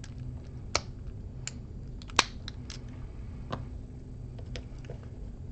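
Scattered sharp metallic clicks and ticks of a lock pick and tension wrench working the pins inside an American 1100 series padlock, the loudest click about two seconds in, over a steady low hum.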